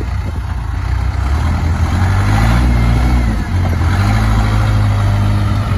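Case 580K backhoe's diesel engine running. Its revs rise about two seconds in, dip briefly near the middle, then hold steady higher.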